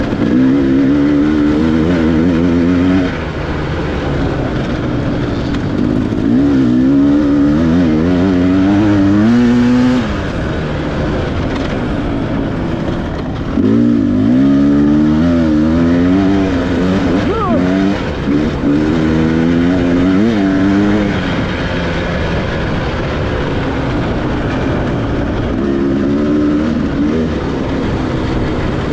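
Dirt bike engine under hard acceleration, its pitch climbing and dropping as the rider shifts up through the gears. It backs off sharply three times and then pulls hard again.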